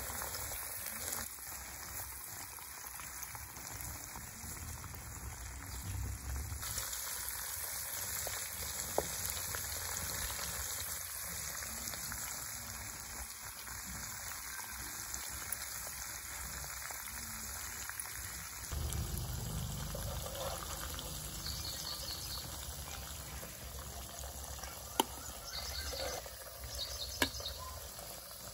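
Hot oil sizzling and bubbling steadily as marinated fish pieces deep-fry in a pan, with a few sharp clicks.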